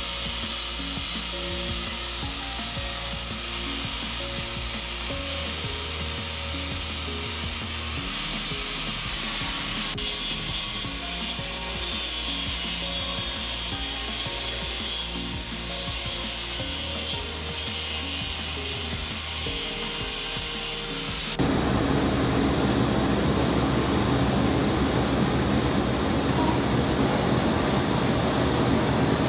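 Small angle grinder with a flap disc grinding a steel exhaust pipe: a steady hiss that stops and restarts several times. About 21 seconds in it cuts suddenly to a louder steady buzzing hiss of TIG welding on the pipe.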